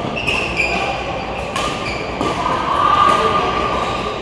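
Badminton rally in a large hall: a few sharp racket hits on the shuttlecock, with shoes squeaking on the court floor. A longer squeak is the loudest sound, about three seconds in. Faint voices from other courts are heard behind.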